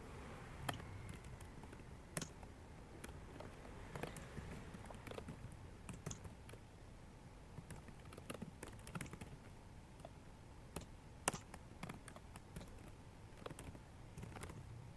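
Computer keyboard keystrokes, faint, sparse and irregular, with one sharper click about eleven seconds in.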